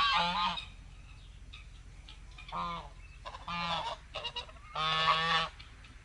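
Geese honking: four separate nasal honks, the last one the longest.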